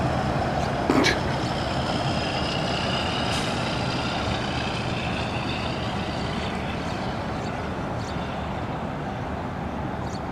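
Steady outdoor rushing noise, with a single sharp knock about a second in.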